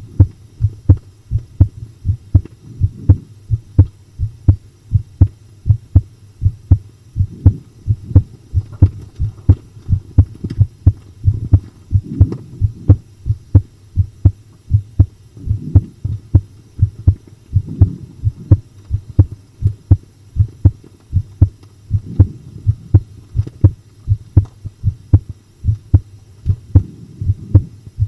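Human heartbeat: a steady, even run of low lub-dub thumps, a little over one beat a second, over a faint low hum.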